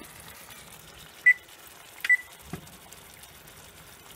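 Two short, high beeps from an electric range's touch control panel, about a second apart, as its buttons are pressed to set the kitchen timer. A soft knock follows shortly after the second beep.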